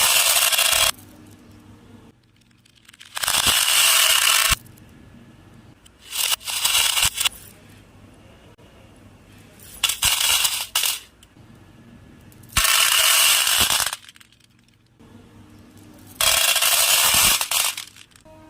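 Loose beads pouring and rattling in six bursts of about a second each, roughly every three seconds, with quiet gaps between them.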